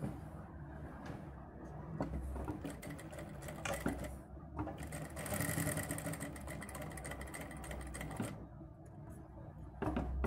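Sewing machine running as it stitches along the edge of a kameez collar. It starts about two seconds in, dips briefly, is loudest in the middle and stops near the end.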